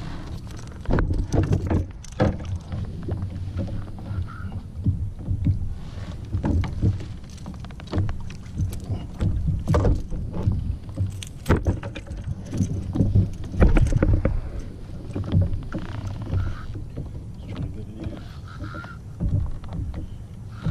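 Water lapping and slapping against the hull of a small fishing boat, with irregular low knocks and splashes.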